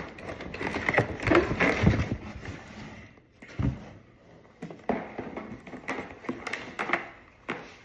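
Cardboard box and packaging being handled and opened: dense rustling for the first two seconds or so, then a handful of separate knocks and taps as the box is moved.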